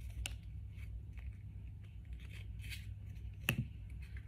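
Foil Pokémon booster pack wrapper crinkling and rustling as the pack is opened by hand, with scattered small crackles and one sharper tap about three and a half seconds in.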